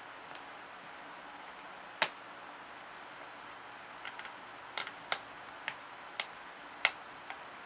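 Irregular sharp clicks and taps of a green-cheeked conure's beak working a plastic pen: one tap about two seconds in, then a quick run of them in the second half, the loudest near the end.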